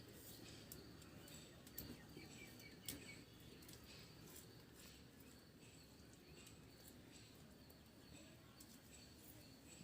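Near silence: faint room tone with a few soft ticks about two and three seconds in.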